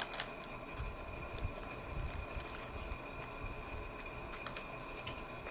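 Chewing with a few soft wet mouth clicks while eating, over a faint steady whine in the room.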